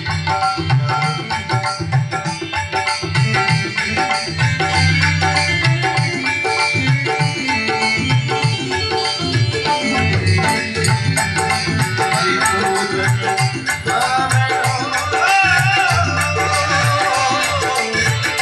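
Instrumental music of a Marwari devotional song (bhajan): a steady hand-drum rhythm under a melody. A shaker comes in about ten seconds in, and a wavering melody line rises over it near the end.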